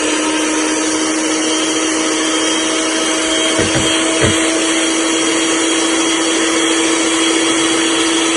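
Electric mixer running steadily at one speed, beating a liquid cake batter as milk is added. A couple of light knocks come about three and a half and four seconds in.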